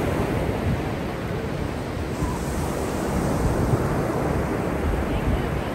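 Small waves breaking and washing up on a sandy shore in a steady wash of surf, with wind rumbling on the microphone.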